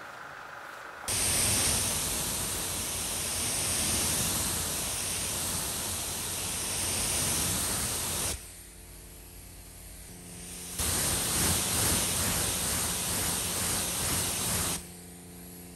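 High-pressure water spray from a car-wash wand hitting a car windshield, in two long bursts: the first starts about a second in and stops after about seven seconds, the second runs for about four seconds after a pause. A faint low hum is heard in the pause between them.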